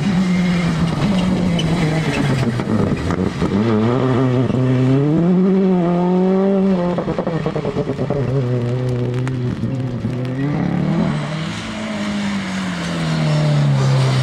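Rally car engine revving hard, its note climbing and then dropping sharply about seven seconds in, with a few sharp cracks around nine to ten seconds, then a long slowly falling note as it eases off.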